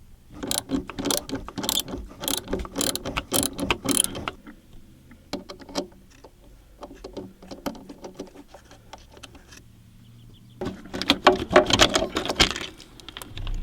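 Socket ratchet clicking in quick runs as a deep 10 mm socket loosens the nut on a car battery's positive terminal clamp. There are two bursts, one starting about half a second in and another near the end, with a few scattered clicks between them.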